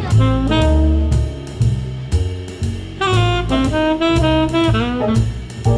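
Jazz music: a saxophone playing a melody over drum kit and bass.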